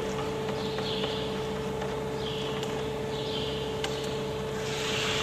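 Crop sprayer's pump running with a steady hum, while rinse water pours from an upturned plastic pesticide container into the sprayer tank. The pouring gets louder about four and a half seconds in.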